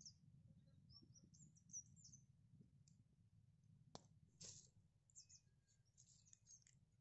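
Near silence with faint, short, high bird chirps, mostly in the first two seconds, and a single faint click about four seconds in.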